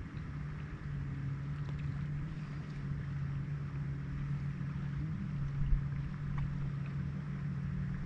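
Steady low motor hum over a low rumble, with a single low thump about six seconds in.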